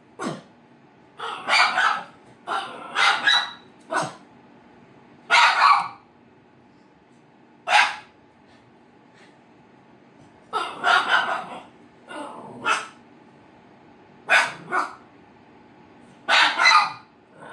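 A dog barking repeatedly in loud, sharp barks, singly and in quick pairs or triplets with pauses of a second or more between them. The barks are aimed at a cardboard box on the floor that the dog dislikes.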